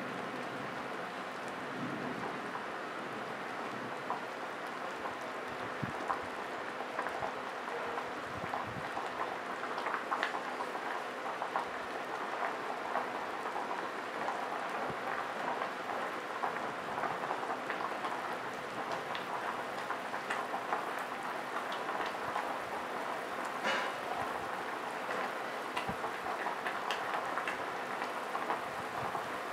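Pot of chicken soup boiling on an induction cooker: steady bubbling with many small pops, over a faint steady hum.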